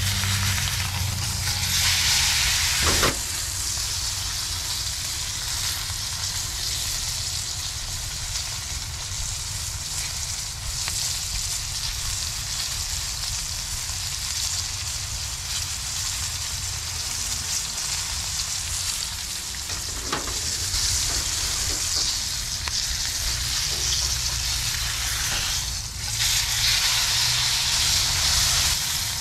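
Porterhouse steak sizzling hard in butter in a hot skillet, seared hot and fast. The sizzle is steady, swells louder about two seconds in and again over the last several seconds, with a couple of sharp clicks.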